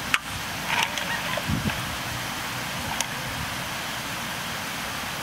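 Strongly carbonated soda water poured from a plastic bottle into a glass of ice, fizzing, with a few light clicks over a steady background hiss.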